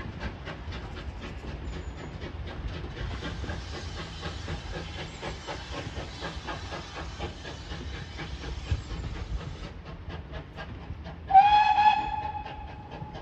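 GWR pannier tank steam locomotive 7714 working a passenger train, its exhaust beating about five times a second with a hiss of steam through the middle. About eleven seconds in its steam whistle gives one loud note that fades away over a couple of seconds.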